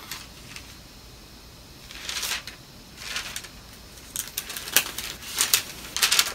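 Paper pages of a book being handled and turned: a couple of soft rustles, then a run of quick crisp flicks and ticks through the second half.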